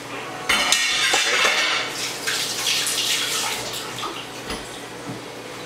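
Running water splashing, like a kitchen tap. It starts abruptly about half a second in, is loudest for the first second and a half, and tapers off over the next two seconds, with a few light knocks mixed in.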